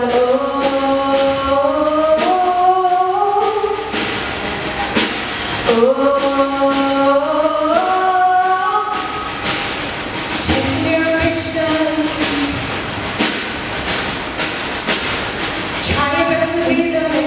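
Small youth choir singing a gospel song in harmony, holding long notes that rise in steps from phrase to phrase, over accompaniment with a steady beat.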